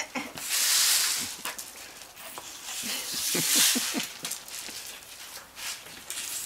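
A broom sweeping, two long strokes about a second each: one near the start and one around the middle, with scattered small clicks.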